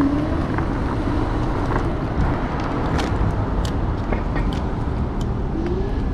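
Electric scooter being ridden: steady low wind and road rumble on the microphone, with a faint motor whine that rises in pitch near the end as it speeds up, and a few light clicks around the middle.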